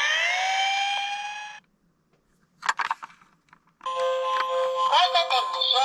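An emergency-vehicle siren wails, its pitch falling and then rising, and cuts off abruptly after about a second and a half. After a short silence broken by one brief burst of sound, upbeat music with a voice over it starts about four seconds in.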